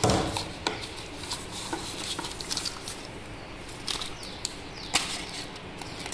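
Handling of a cardboard phone box and its paper inserts: scattered light taps, clicks and rustles, with a sharper knock at the start.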